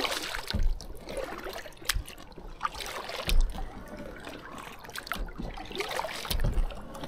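Kayak paddling: paddle blades dipping into the lake with water trickling and dripping off them, with a few low thumps between strokes.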